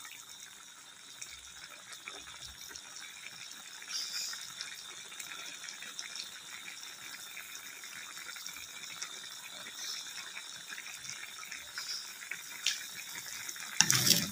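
Egg stew in soy-sauce gravy simmering in a wok: a steady bubbling and sizzling. A louder noise cuts in just before the end.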